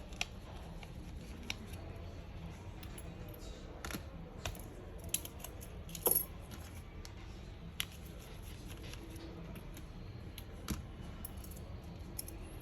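Scattered small clicks and light metallic taps of a screwdriver and tiny screws being handled while a smartphone is taken apart, the sharpest about six seconds in, over a low steady hum.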